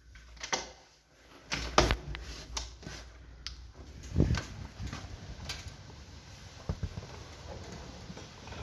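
Irregular knocks and clicks as a bicycle is handled and wheeled through a hallway, over a low rumble from the jostled handheld camera; the two loudest thumps come about two and four seconds in.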